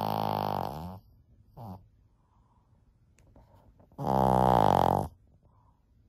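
A 14-year-old Shih Tzu snoring loudly in deep sleep: a long snore dies away about a second in, a brief sound follows, and another loud snore comes about four seconds in, lasting about a second.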